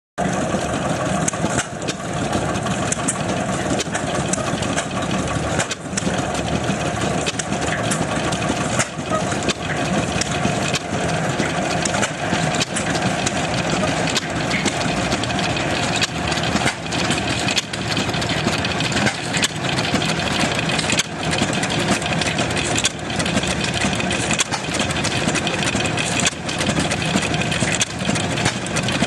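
An engine running steadily, with sharp knocks recurring every second or two.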